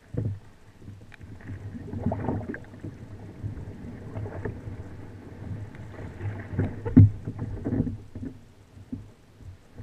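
Kayak paddling: a double-bladed paddle dipping and pulling through shallow, lily-pad-covered water, with splashes and drips every second or two. There is a sharp knock about seven seconds in, over a low steady hum.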